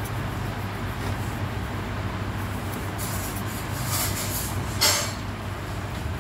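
White pastel crayon rubbing over coloured pastel on paper, blending the colours, with a few short scratchy strokes in the second half. A steady low hum runs underneath.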